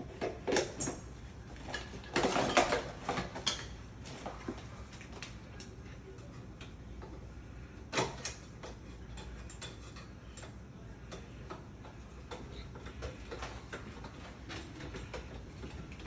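Small metallic clicks, taps and scraping from hand work on a mortise door lock. There is a busier clatter about two to three and a half seconds in and a single sharp knock about eight seconds in, then lighter, irregular ticks.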